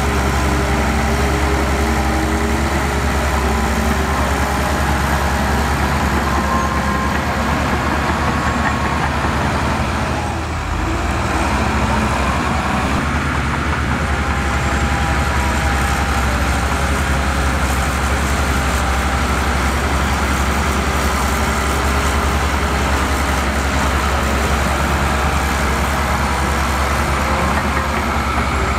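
Heavy diesel earthmoving machinery running: a steady, loud engine drone with a brief dip about ten seconds in.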